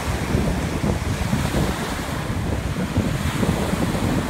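Gulf surf breaking and washing up the beach, with wind buffeting the microphone in a gusty low rumble.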